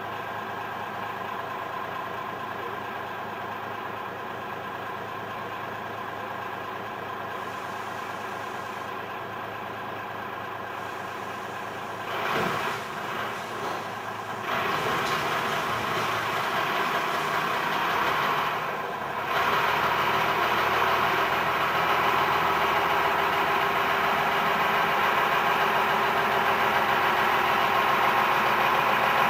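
Diesel shunting locomotive's engine running steadily. It grows louder in steps, about twelve seconds in and again around fifteen and twenty seconds.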